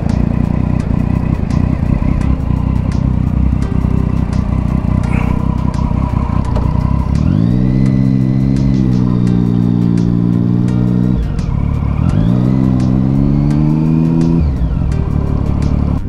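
Motorcycle engine under way, over a dense low rumble. It revs up with a rising note that levels off about seven seconds in, eases briefly, then revs up and levels off again about twelve seconds in.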